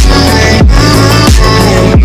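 Loud electronic dance music with a heavy beat: a deep bass hit that drops in pitch comes about every two-thirds of a second under layered synth tones.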